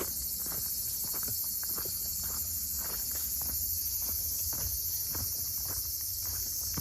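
Steady, dense chorus of insects chirping high-pitched, with scattered light clicks and taps throughout.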